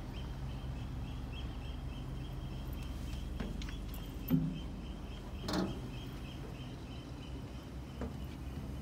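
Steady low mechanical hum with a faint high whine over it, broken by two dull knocks a little past the middle.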